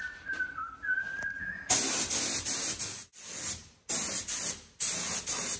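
A short, wavering whistled tune, then paint being sprayed in about four loud bursts of hiss, each a second or so long, with brief gaps between them.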